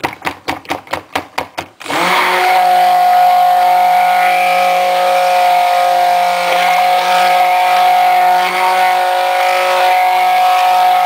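A quick run of taps, about six a second, then an electric stick blender switched on about two seconds in and running steadily in a plastic jug of pink cold-process soap batter. The batter is thickening fast as it is blended.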